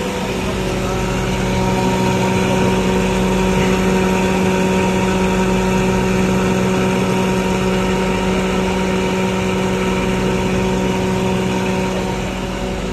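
Running industrial machinery giving a steady hum: a strong constant drone with several steady tones above it and a noisy wash, unchanging throughout.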